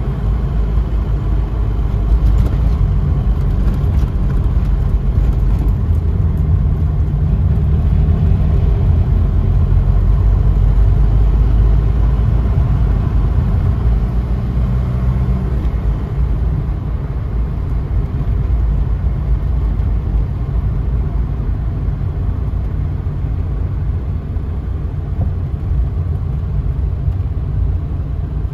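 A taxi's engine and road rumble heard from inside the moving car, steady and low. The engine note eases about halfway through.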